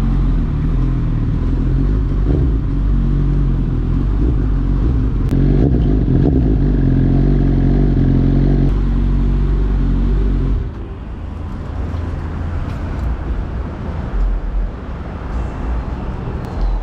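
Suzuki GSX-S1000 inline-four superbike engine through a LeoVince exhaust, running at steady revs. About ten seconds in the revs drop away and the exhaust settles into a quieter, uneven rumble.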